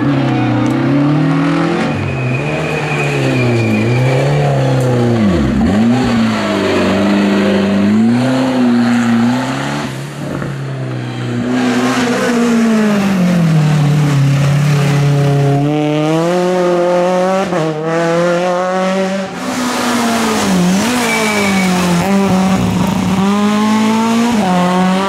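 Rally car engines running hard on a stage, the pitch repeatedly climbing and dropping as the drivers rev and change gear, with a brief tyre squeal.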